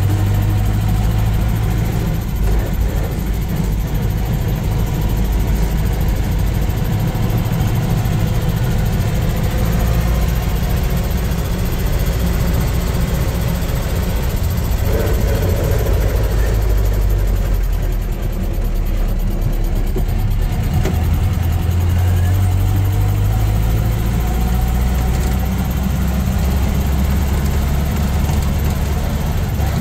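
Land Rover Series II engine and gearbox running while driving, heard from inside the cab: a steady, busy low drone whose note dips briefly a little past halfway and then picks up again. The drivetrain has a freshly rebuilt transfer case.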